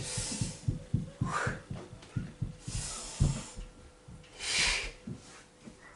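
A man breathing hard after a round of exercise: four deep, noisy breaths about a second apart, with soft low thuds beneath.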